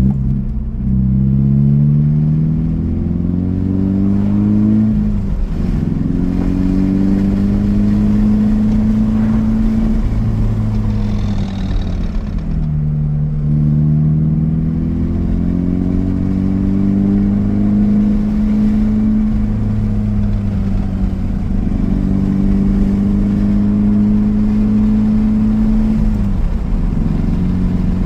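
2013 Subaru BRZ's flat-four engine running while driving: it climbs in pitch, drops at a shift, holds steady, and falls as the car slows about twelve seconds in and again near the end. A brief rattle is heard around eleven seconds in, during a slowdown, the braking rattle the owner is chasing.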